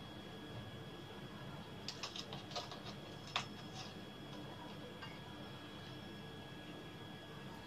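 Serrated knife cutting a crisp green pepper held in the hand over a glass bowl: a quick run of sharp clicks and snaps about two seconds in, with one louder snap a little later, as the blade bites through and the small pieces drop into the bowl.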